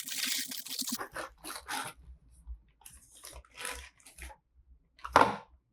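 Packaging being handled and opened: a stretch of rustling and tearing, then scattered crinkles of cardboard and plastic, with one sharp click about five seconds in.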